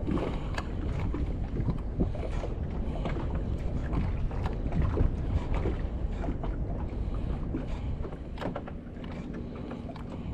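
Wind buffeting the microphone over small waves slapping and lapping against a fishing boat's hull, with irregular knocks and splashes.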